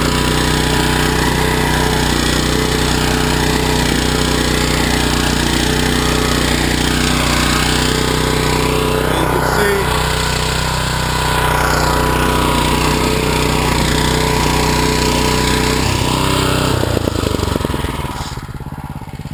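The small single-cylinder gasoline engine of an AXO Garden two-wheel tractor running steadily at working speed while its rototiller works the soil. About 17 seconds in, the engine note changes and drops in level as it slows.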